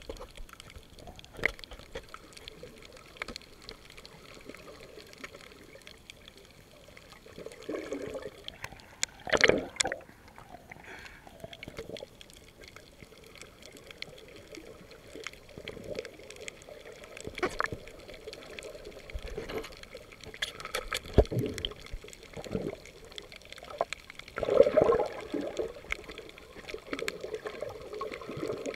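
Underwater sound through a waterproof camera housing: muffled water movement and bubbling, with scattered clicks and knocks. A few louder swishes stand out, the biggest about nine and a half and twenty-four seconds in.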